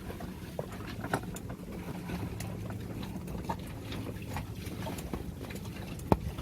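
Steady low mechanical hum aboard a sailing catamaran, with scattered light clicks and knocks and one sharper knock near the end.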